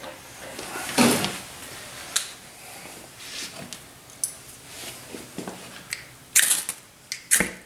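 Ferrocerium fire stick struck with its scraper to light alcohol stoves: a couple of short, sharp scrapes near the end, with scattered handling clicks and knocks before them.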